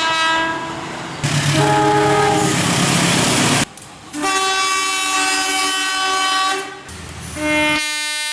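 Train horns sounding a series of blasts: a short one, then one over a loud rushing noise, then a long blast of about two and a half seconds, then a short toot, and another blast starting near the end and holding.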